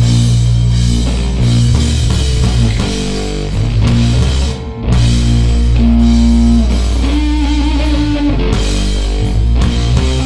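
Rock band playing loud, heavy rock on distorted guitar, bass guitar and drum kit with cymbals. The band drops out briefly about four and a half seconds in, and a long held, wavering note rings out around the middle.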